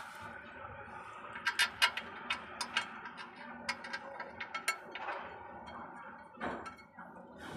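Irregular sharp metallic clicks and taps from a clutch pressure plate and flywheel being handled, bunched in two quick clusters, with a duller knock near the end.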